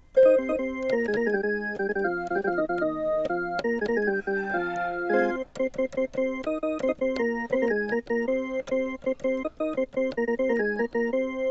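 M Studio MS41 mini keyboard playing its pipe organ voice (tone 06): a tune in sustained organ chords, several notes at once, with a short break about five seconds in.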